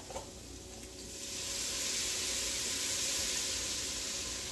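Chicken broth poured from a carton into a hot Dutch oven of sautéed onions, celery and flour: from about a second in, the liquid hits the hot pan and sizzles, swelling and then easing off as it cools the pot.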